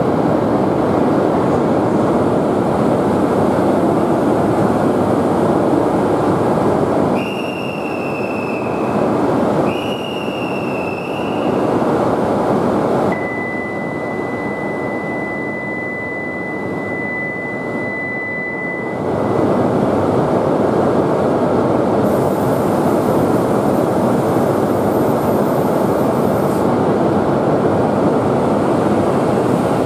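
Loud steady rushing noise of a Shinkansen train at a station. Two short high whistle tones come about 7 and 10 seconds in. The rush then drops for several seconds while a steady high beep sounds.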